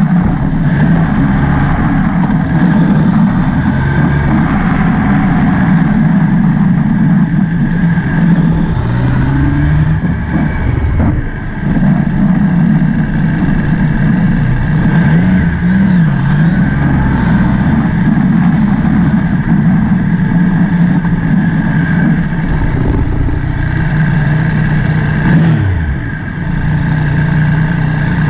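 Motorbike engine running while riding, its pitch rising and falling with the throttle several times, easing off briefly about eleven and twenty-six seconds in.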